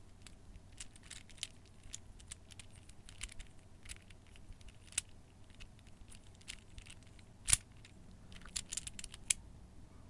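Faint, scattered clicks and clacks of a small plastic folding fidget cube being flipped and turned in the hands, with one sharper click about seven and a half seconds in and a quick run of clicks near the end.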